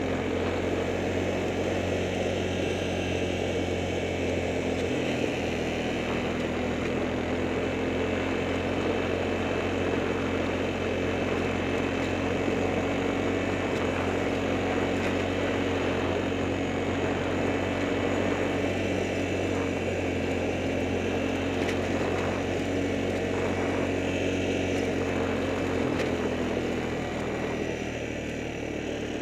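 Steady running of a motor or engine at a constant pitch, easing off slightly near the end.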